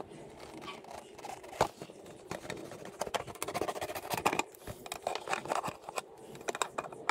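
Irregular light clicks, taps and scrapes of hand tools and parts being handled, coming thicker around the middle.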